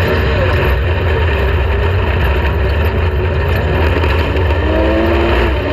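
Off-road race vehicle running at speed: a steady, loud engine and drivetrain rumble over road noise, with the engine's pitch rising and falling near the end.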